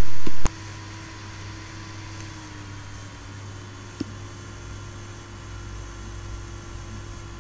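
Steady low hum and hiss of room tone after a sharp cutoff with a click about half a second in. A single short click sounds about four seconds in.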